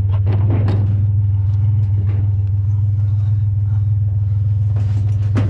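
A vehicle engine idling with a steady low hum. A few light knocks and clatters come in the first second and again near the end.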